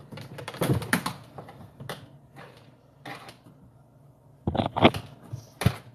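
Irregular clicks, taps and scraping as a homemade rod and wiring are worked through a plastic kayak hull past styrofoam. There is a cluster of knocks about half a second in, a few single taps, a short quiet spell, then a quick burst of clicks near the end.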